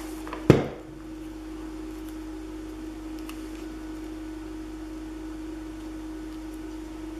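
A single sharp knock on the tabletop about half a second in, then a steady low hum, with a few faint ticks as paper embellishments are handled and pressed onto a scrapbook layout.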